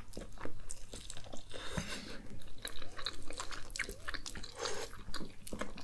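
Two people biting into and chewing chicken legs close to the microphone, a run of many short, irregular mouth clicks.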